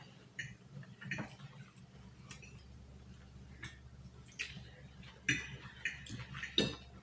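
Quiet eating at the table: scattered soft clicks and taps of cutlery on dishes and mouth sounds, about eight in all, with a faint steady hum beneath.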